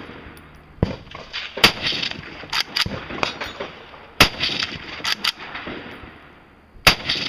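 Rifle shots fired one at a time at a steel dueling tree, about four loud reports a second or more apart, with fainter sharp knocks between them. The rifle's gas system is getting no gas, so it is not cycling itself and is being worked by hand between shots.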